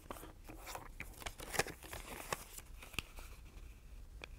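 A sheet of origami paper being folded and creased by hand: faint crinkling and scattered crackles as fingers press along the folds, with two sharper crackles about one and a half and three seconds in.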